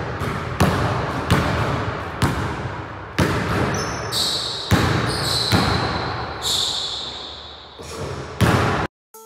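Basketball bouncing on a hardwood gym floor about once a second, each bounce echoing in the empty hall, with a few short sneaker squeaks on the floor in the middle. The sound cuts off suddenly near the end.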